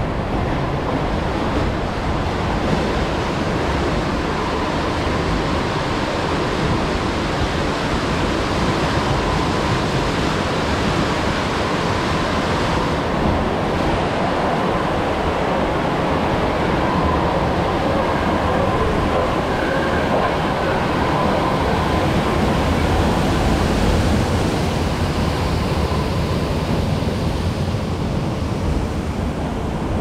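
Water rushing and churning along a river rapids ride channel around a round raft, a steady wash of noise that grows fuller and a little louder about halfway through, while the raft passes through a dark tunnel.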